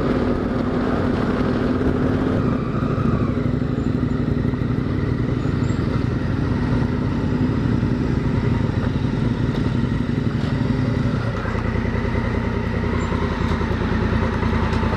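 Honda Africa Twin motorcycle engine running at low road speed, heard from the rider's own bike. It eases off a few seconds in, and about eleven seconds in it settles to a steady idle as the bike pulls up and stops.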